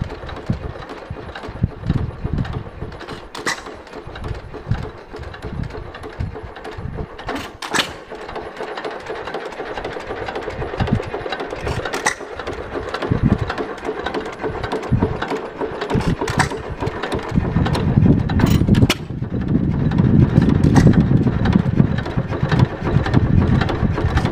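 Hercules Economy hit-and-miss gas engine running, with irregular low firing thumps and gaps between them as it coasts on its flywheels, and a few sharp clicks. It gets louder and steadier about two-thirds of the way through.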